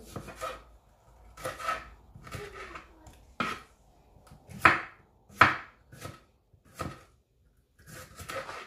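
Kitchen knife slicing a red bell pepper on a wooden cutting board: an irregular series of sharp knocks as the blade hits the board, roughly one a second, the two sharpest near the middle.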